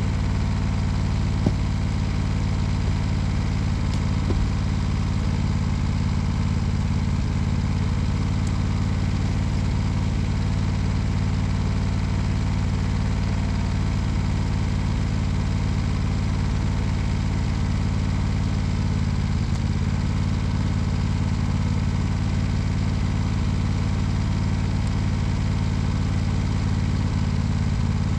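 Small petrol engine idling steadily, with a couple of light knocks in the first few seconds.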